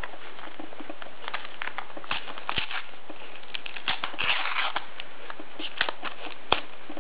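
A paper sticker packet being torn open by hand: scattered crinkles and rustles, with a longer tearing rustle about four seconds in and a sharp click near the end.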